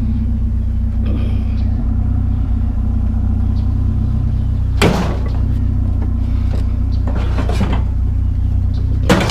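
Truck engine idling steadily, with two loud knocks, one about five seconds in and one near the end.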